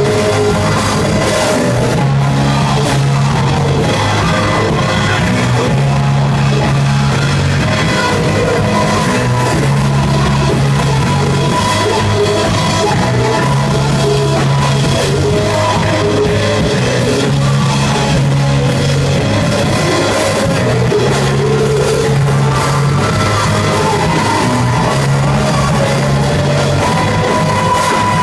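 Live rock band playing loud, with drums and a low bass figure that repeats about every two seconds.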